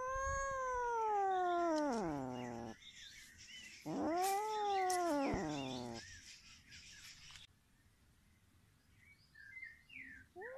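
Kitten yowling twice with its mouth clamped on a snake: two long, drawn-out calls, the first sliding down low in pitch at its end, the second starting about four seconds in and rising then falling.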